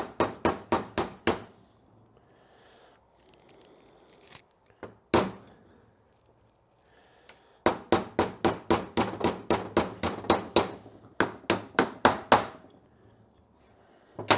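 Hammer tapping a steel pin punch to drive a stuck pin out of a Honda GL1100 Goldwing front brake caliper: quick runs of metallic taps, about five a second, the longest lasting some three seconds, with pauses between.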